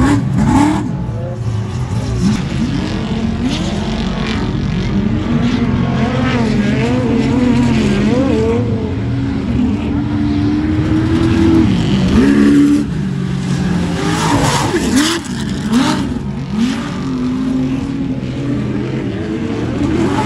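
Off-road race trucks and Class 1 buggies running hard, engine pitch rising and falling again and again as they accelerate and ease off. The pitch holds high for a couple of seconds about ten seconds in, then drops away.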